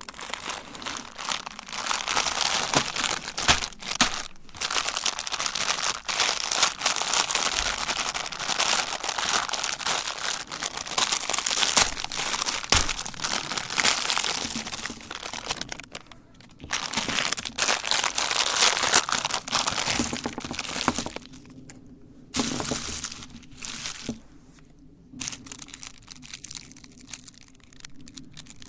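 Meat grinder crushing candy: a dense, loud crackling and crunching that drops off briefly about sixteen seconds in and goes quieter and patchier in the last third.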